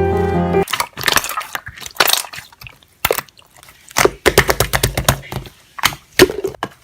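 Slime being squeezed and pressed by hand, making sharp crackling pops and clicks in irregular clusters, densest about four to five seconds in. Background music cuts off under a second in.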